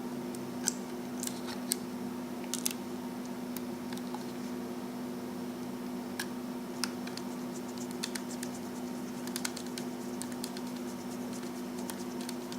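Small screwdriver working the tiny screws of a laptop hard drive caddy, giving scattered light clicks and scratches of metal on metal. A steady low hum runs underneath.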